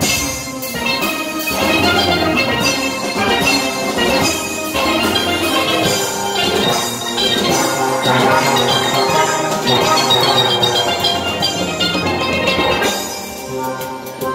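Steel band playing: many steel pans struck with mallets in quick runs of bright ringing notes, with drums underneath.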